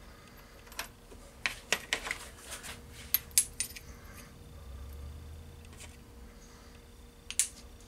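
Small pieces of steel clinking and clicking against each other and the jaws of a bench vise as they are handled and set butt to butt. There is a run of sharp clinks in the first few seconds, a brief low rumble around five seconds in, and one more clink near the end.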